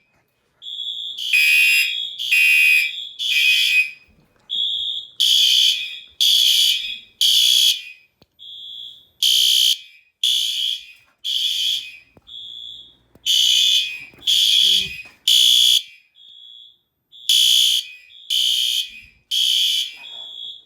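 Fire alarm horns sounding in the temporal code-3 evacuation pattern: three loud blasts about half a second apart, then a pause, repeating every 4 seconds. In each pause a thinner single tone sounds, out of step with the blasts.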